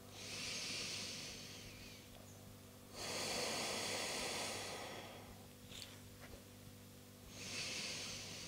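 A woman taking slow, deep breaths: a long inhale, a long exhale, then the next inhale beginning near the end.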